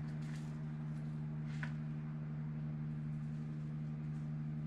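Steady low hum, with a few faint light clicks of a spoon and small glass bowls being handled.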